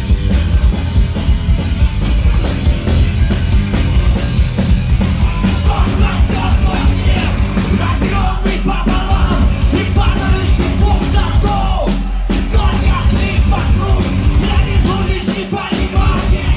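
Loud rock music from a band playing live: heavy drums and bass under guitars, with a voice singing and shouting over them.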